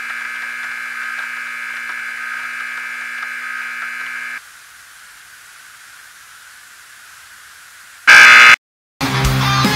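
A steady electric buzzing drone that cuts off suddenly about four and a half seconds in, leaving a faint hiss. A little after eight seconds comes a very loud half-second burst of static, a brief dead silence, then the intro theme music starts with electric guitar.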